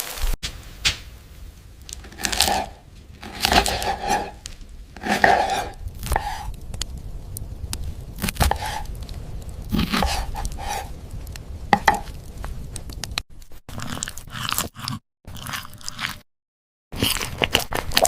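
Close-up ASMR crunching and chewing of food, in irregular bites about a second apart, cut by two brief moments of silence near the end.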